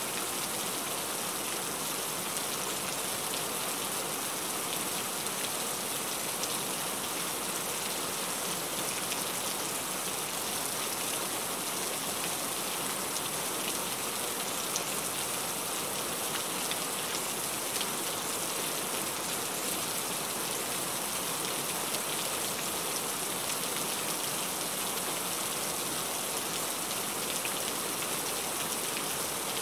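Heavy rain falling steadily: a dense, even hiss of rain with scattered drop ticks and no change in strength.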